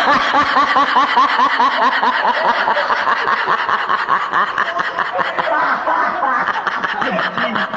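Sustained laughter in a rapid, unbroken run of short "ha" pulses.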